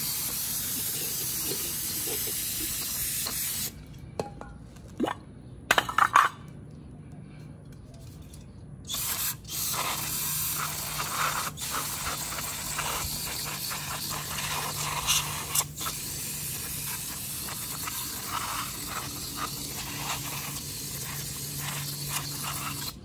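Aerosol spray can of cleaner hissing in long bursts, with a pause of about five seconds beginning about four seconds in that holds a few sharp clicks and knocks.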